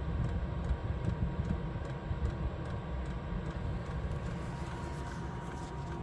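8 kW Chinese diesel air heater running with a steady low rumble and a faint regular ticking, about two or three ticks a second, that fades in the second half.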